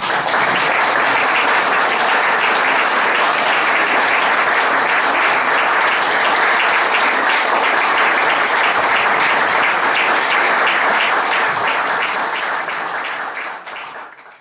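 Audience applauding, a steady dense clapping that starts as the music stops and fades out near the end.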